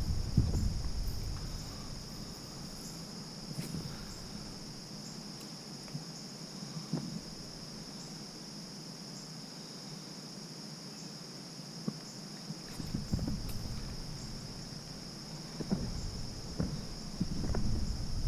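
Steady insect chorus, a continuous high trill that does not change, with low rustling and a few knocks near the start and again in the last few seconds.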